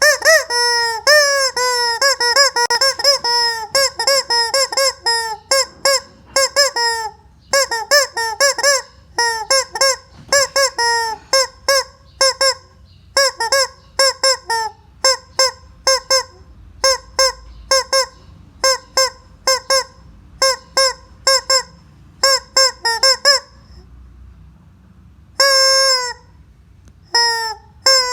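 Squeeze-toy chicken honking over and over. Each squeeze gives the same short honk at one fixed pitch. The honks come in quick strings at first, then singly about once or twice a second, with a short pause near the end.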